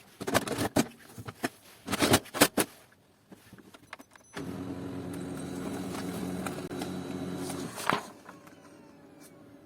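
Clicks and knocks of plastic printer parts being handled and fitted, then the Kyocera ECOSYS M2030dn laser printer's drive mechanism running steadily for about three and a half seconds and stopping with a clunk, as the machine cycles after the drum pulley has been greased to cure a squeak.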